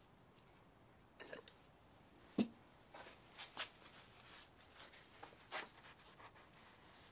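Faint handling sounds: a blue shop towel rustling as it is folded and then rubbed over the hub of a small cart wheel, with scattered light ticks. One sharper knock comes about two and a half seconds in.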